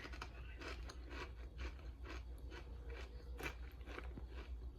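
Close-up chewing of crunchy chili lime potato chips: a run of many small, irregular crunches, about three a second.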